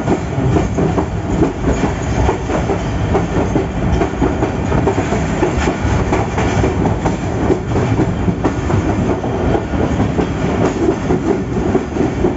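PHA-20 diesel-electric locomotive running at speed, heard from the cab: a loud steady rumble of engine and running gear with irregular clattering of wheels over the track.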